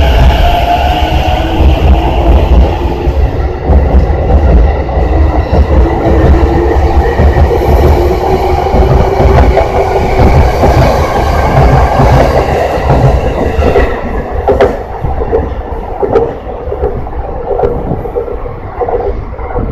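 E233-series electric commuter train accelerating out of a station: the traction motors give a rising whine over heavy running rumble. In the second half, wheels click over rail joints, and the sound fades near the end as the train draws away.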